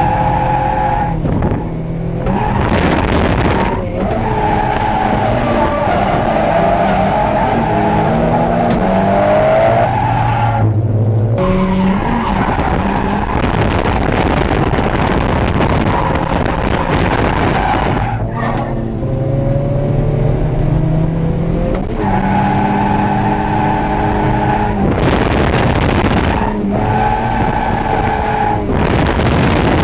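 Heard inside the cabin of a 1992 Eunos Roadster (Mazda MX-5): its 1.6-litre B6ZE four-cylinder engine revs high and falls back again and again, with brief drops as the throttle is lifted or a gear is changed. Tyres skid underneath as the car drifts.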